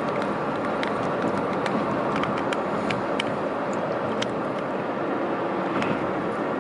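Steady road and engine noise heard inside a moving car's cabin at highway speed, with scattered light clicks and ticks.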